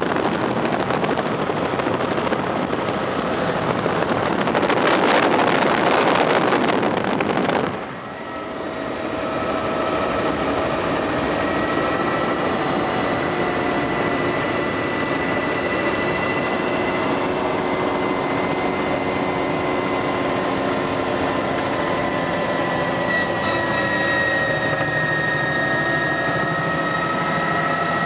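Helicopter heard from inside its cabin in flight. For the first eight seconds a loud rushing noise dominates, then it drops abruptly. What follows is a steady engine and rotor noise with a whine of several held tones.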